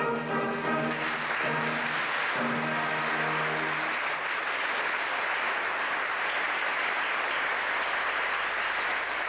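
Theatre audience applauding over the final held chords of an opera orchestra. The music ends about four seconds in, and steady applause carries on alone.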